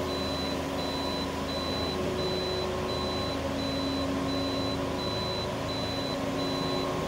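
A high electronic warning beep repeating at an even pace, about one and a half beeps a second, over the steady hum of a car's engine. It is most likely the car's warning beeper while reversing.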